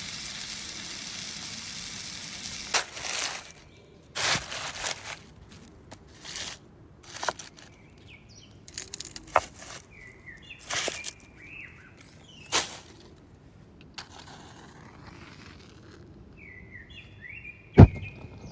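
Small birds chirping in short calls over a series of sharp cracks and knocks every second or two, the heaviest knock near the end. A steady hiss fills the first couple of seconds.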